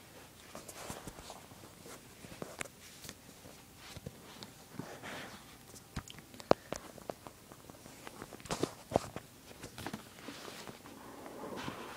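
Hands opening an iPad 2's retail box: scattered clicks, taps and rustling of cardboard and plastic packaging, with one sharper click about halfway through.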